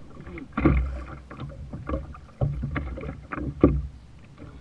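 Choppy sea water slapping against a plastic kayak hull in irregular knocks, several of them sharp and loud, over a steady low rumble of wind on the microphone.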